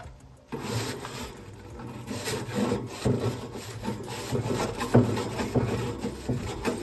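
Char-Broil nylon-bristle grill brush scrubbing back and forth across grill grates: a rough, rasping rub that starts about half a second in and goes on in repeated strokes.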